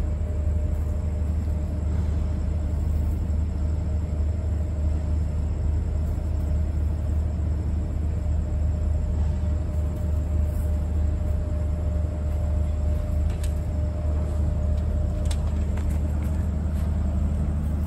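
Steady low rumble with a faint steady hum above it. It is unchanging throughout, with a few faint clicks near the end.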